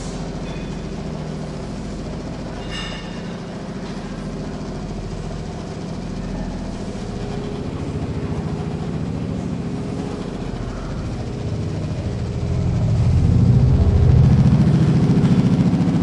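Motorised treadmill running: a steady low motor-and-belt drone that grows louder about twelve seconds in.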